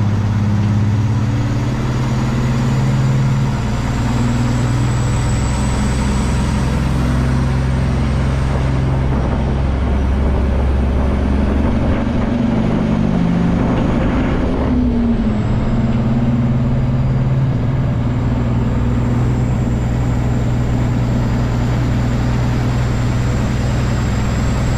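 Peterbilt semi truck's diesel engine running steadily as the truck drives slowly, its note shifting a few times about halfway through.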